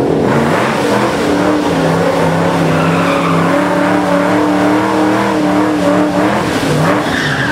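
Burnout by a 1993 Ford Mustang LX Fox Body with a supercharged 347 small-block V8. The engine is held at a steady pitch while the rear tires spin and smoke on the pavement, and the revs dip briefly near the end.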